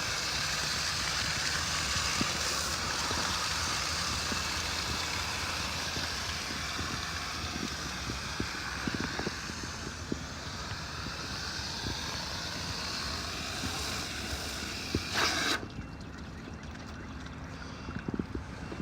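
Garden hose spraying water through an air-conditioner condenser coil, a steady hiss of water washing debris off the fins from the inside out. The spray cuts off suddenly about fifteen seconds in.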